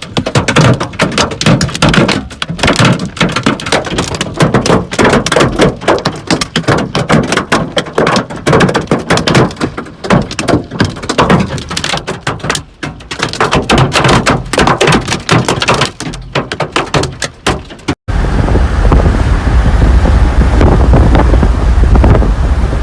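Hailstones pelting a hard surface in a dense, uneven barrage of knocks. About 18 seconds in it cuts abruptly to steady wind buffeting the microphone with a low rumble.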